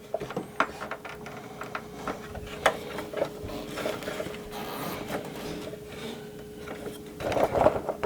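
Hard plastic parts of a 1988 G.I. Joe Rolling Thunder toy vehicle being handled and snapped together: scattered small clicks and taps of plastic on plastic, over a faint steady hum.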